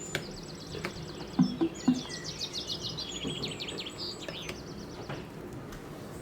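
A small songbird singing long trills of rapid, high chirps that stop about two-thirds of the way through, with a few faint soft knocks beneath.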